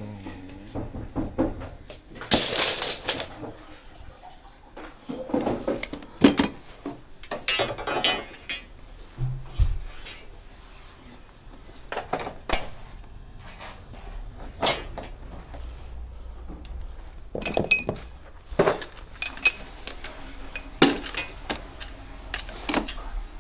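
Copper pipe, fittings and metal hand tools being handled, giving irregular metallic clinks, knocks and clatters.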